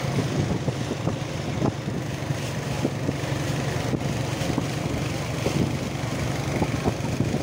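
Small motorboat's engine running steadily at cruising speed, a low even drone, with short irregular knocks over it.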